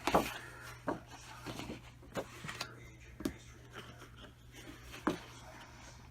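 Sheets of thick scrapbook paper being handled and turned over: short rustles and soft taps every second or so, the sharpest just after the start, over a faint steady low hum.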